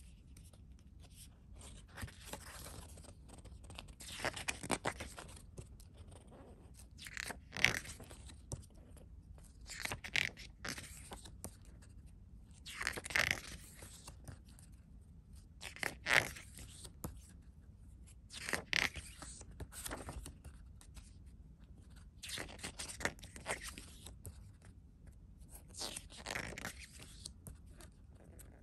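Pages of a glossy CD booklet being turned by hand, a papery rustle about every two to three seconds.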